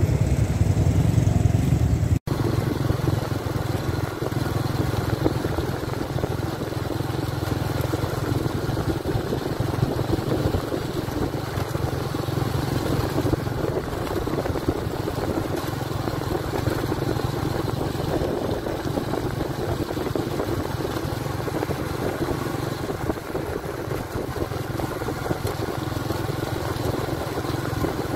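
Small motorcycles riding along a track: engine noise mixed with a steady rushing noise, broken by a brief dropout about two seconds in. Before the dropout, a low engine hum like a scooter idling.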